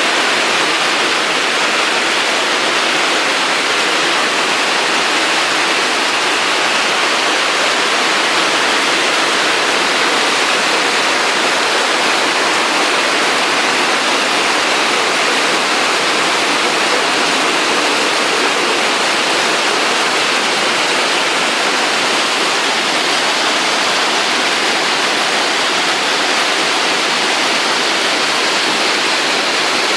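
Heavy rain pouring down, a loud, dense, steady hiss that doesn't let up.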